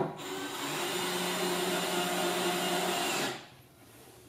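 DeWalt cordless drill/driver running steadily for about three seconds, driving a screw into the desk frame during assembly, then stopping abruptly. A sharp click comes just before the motor starts.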